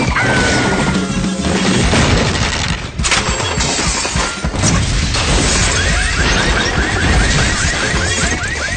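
Cartoon soundtrack: busy background music with slapstick crash sound effects, and in the last few seconds a quick run of repeated short pitched chirps, about five a second.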